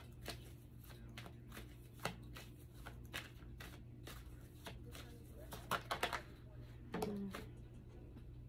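Tarot cards being shuffled and handled: a run of short, sharp card clicks and flicks, bunching together about six seconds in, over a faint steady low hum.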